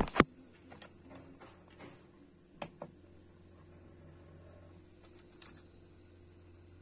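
Low steady hum from an Original Prusa 3D printer's fans while its hotend is hot, with one sharp click about a quarter of a second in and a few fainter clicks around three seconds and five and a half seconds in.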